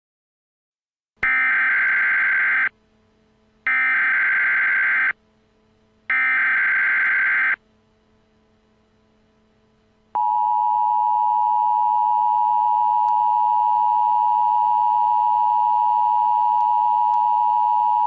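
Emergency Alert System header: three identical bursts of harsh, screechy data tones, each about a second and a half long with short gaps between, followed about ten seconds in by the EAS attention signal, a steady two-tone beep held for about eight seconds that marks the start of an alert message.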